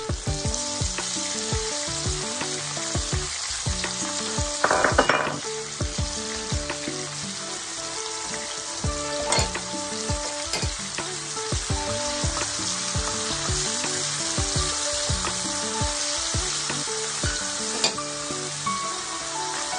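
Chopped onions sizzling as they fry in hot oil with whole bay leaves, cinnamon and cardamom, a steady hiss. Short clicks and taps come from the onions being stirred in the pan.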